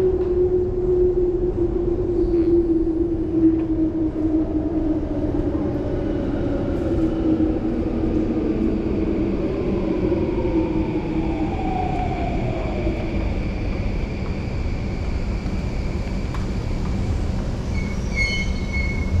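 Singapore MRT train running with the rumble of wheels on rail, its electric motor whine falling slowly in pitch as the train slows. A brief high-pitched squeal near the end.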